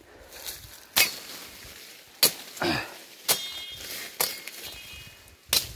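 Machete strokes cutting through coffee-bush undergrowth: about five sharp strikes roughly a second apart, some followed by a brief metallic ring, amid rustling leaves.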